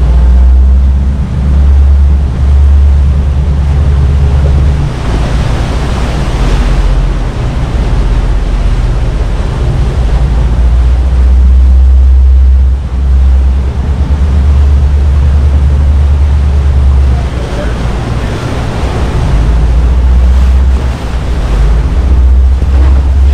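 Pilot boat underway close alongside a ship's hull: a steady low engine drone with water rushing and churning between the two hulls, and wind buffeting the microphone. The water noise swells louder now and then.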